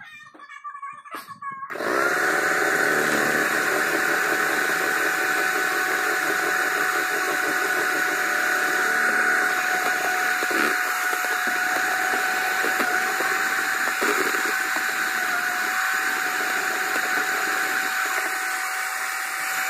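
Electric hand mixer starting about two seconds in, then running at a steady speed with an even whine as its beaters whisk a milky liquid in a plastic jar.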